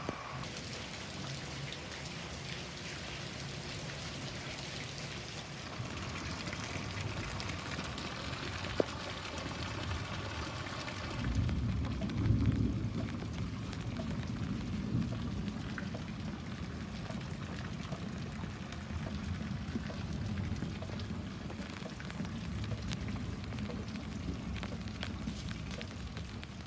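Heavy monsoon rain falling steadily on wet ground and pavers. About 11 s in the rain sounds lower and heavier, with a low rumble peaking a second or two later.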